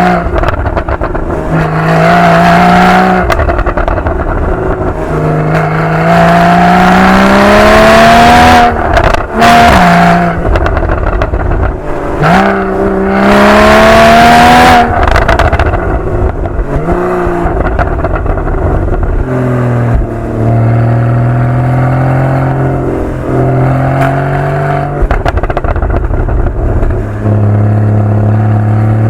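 Porsche 981 Boxster GTS's 3.4-litre flat-six through its factory sport exhaust, accelerating hard several times with a rising pitch that drops at each upshift, and popping and crackling on lift-off. In the last third it settles to a steadier, lower drone at part throttle.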